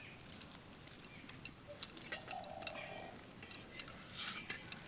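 Faint, scattered light clicks and clinks of spiced mashed potato stuffing being mixed in a bowl. A brief faint tone comes in about two seconds in.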